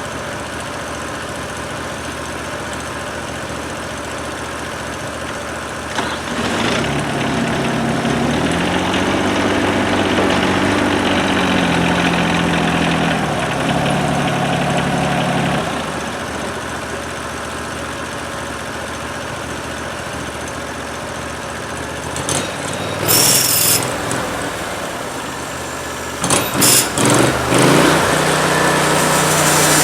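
Portable band sawmill's engine idling, speeding up about seven seconds in and holding a higher speed for several seconds before dropping back to idle. Near the end come a few short louder noises, and the engine speeds up again.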